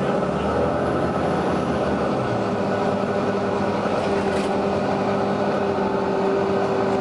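Volvo B9TL double-decker bus's nine-litre six-cylinder diesel running at a steady speed with a steady whine, no revving.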